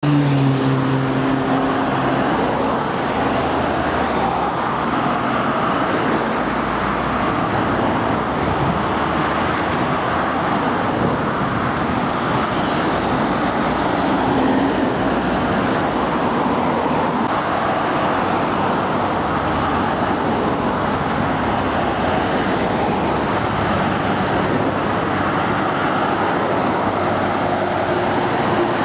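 Scania diesel trucks driving past in busy road traffic. Engine and tyre noise sit over a steady traffic hum, with a pitched engine note clearest right at the start.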